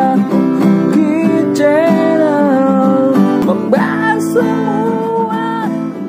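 Intro music led by guitar, with a melody line moving over a steady chordal backing.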